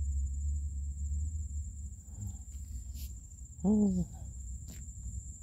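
Insects droning steadily at a high pitch over a constant low rumble. About three and a half seconds in, a short human vocal sound falling in pitch is the loudest thing, with a couple of faint clicks around it.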